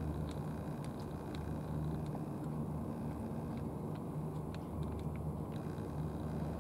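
Tabby cat eating from a plastic tray: scattered small wet clicks of chewing, over a steady low engine-like rumble.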